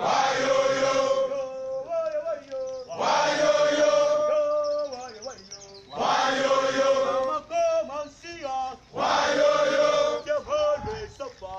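Men's military drill chant in call and response: a body of men answers in unison about every three seconds, with a single lead voice singing the line in between.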